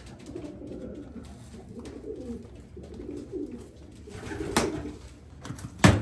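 Racing pigeons cooing with low, warbling calls throughout. A sharp knock comes about four and a half seconds in, and a louder sharp knock just before the end.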